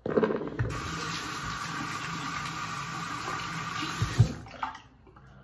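Water running from a tap, turned on suddenly and shut off after about four and a half seconds, with a dull knock early on and a louder one shortly before it stops.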